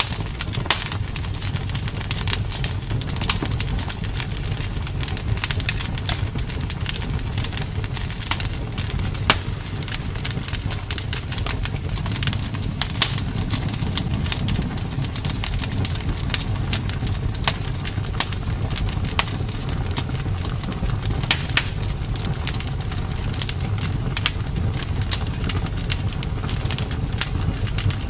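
Wood fire burning in a fireplace: a steady low rumble with frequent, irregular crackles and pops.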